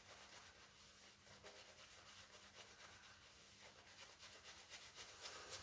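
Faint brushing of a hot, soft badger-hair shaving brush working lather over a bearded face, a quick scratchy swish repeated stroke after stroke.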